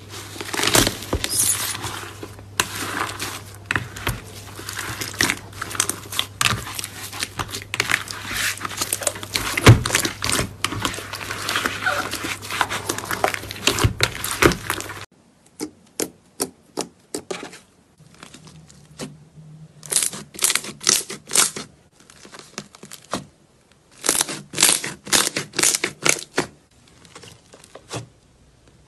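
Hands pressing and kneading slime, making dense crackling and popping as air pockets in the foamy slime burst. About halfway through it changes to sparser clusters of sharp pops and clicks as another slime is squeezed.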